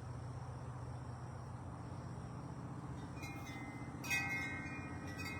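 Evening garden ambience: insects chirping steadily over a low hum, with a few ringing, chime-like tones coming in during the last two seconds.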